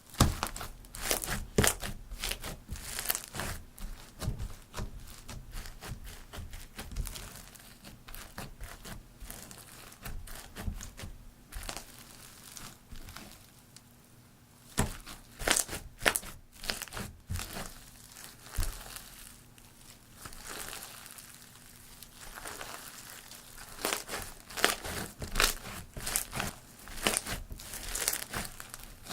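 Glossy slime mixed with foam beads being squeezed and kneaded by hand, giving irregular crunching and crackling. The crackling comes in busy clusters with quieter stretches between.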